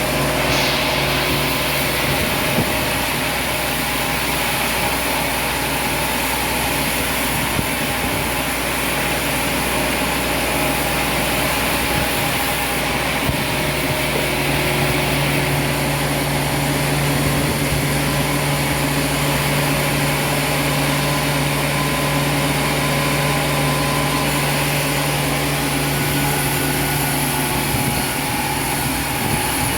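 Sawmill machinery running steadily: a continuous mechanical drone with a constant low hum that grows stronger about halfway through.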